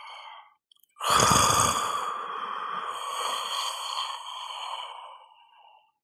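A person snoring. A breath ends about half a second in, then about a second in comes a loud, rough, rumbling snore that trails into a long breathy exhale, fading out near the end.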